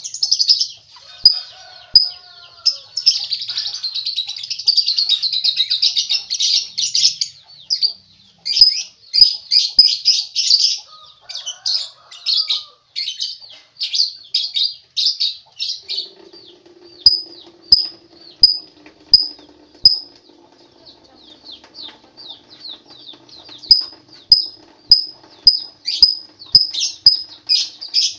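Lovebird chattering in long runs of rapid, high-pitched chirps, broken by short pauses and scattered sharp clicks. A low steady hum comes in about halfway through.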